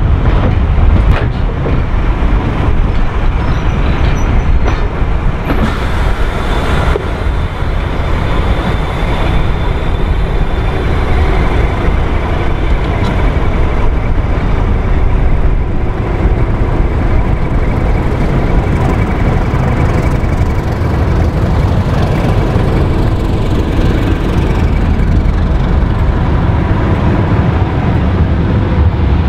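Brush Type 2 (Class 31) diesel-electric locomotive working, its English Electric 12SVT engine giving a steady, heavy low sound throughout.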